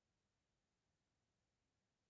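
Silence: no audible sound.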